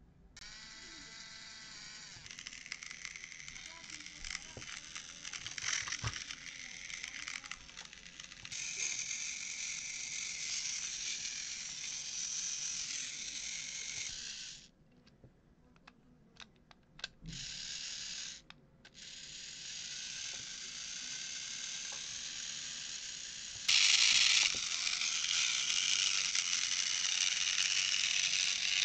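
Small battery-powered Trackmaster toy-train motor whirring through its plastic gearbox, running and stopping as engines are tested. It cuts out twice around the middle and runs louder near the end.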